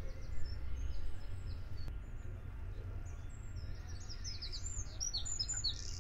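Small birds chirping in short, quick falling notes, growing busier in the last second or two, over a steady low rumble.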